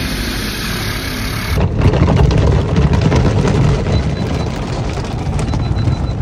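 Automatic car wash heard from inside the car: a steady low hum, then from about a second and a half in a louder, dense rumbling wash of water spray and brushes working over the body, with many irregular knocks.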